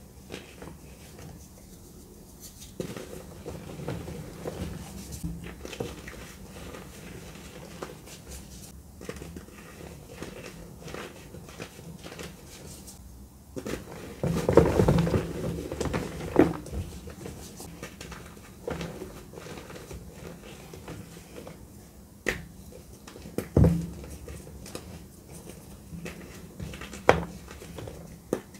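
Hands crushing dry gym chalk blocks, the chalk crumbling and grinding into powder between the fingers. The loudest crunching comes about halfway through, and a few sharp snaps of blocks breaking follow later.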